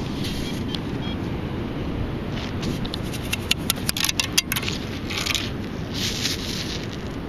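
Sand being shaken through the perforated basket of a beach sand scoop: a quick run of sharp rattling clicks from grit and debris in the basket, then hissing pours of sand near the end, over a steady low rumble.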